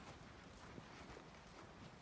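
Near silence: faint footsteps of someone walking over grass, with a low rumble underneath.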